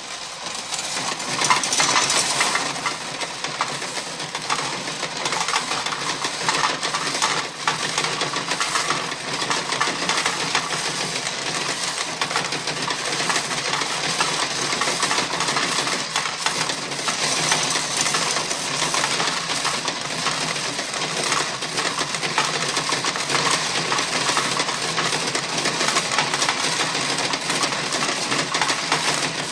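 Slot machine paying out: a dense, steady stream of coins clattering, starting abruptly.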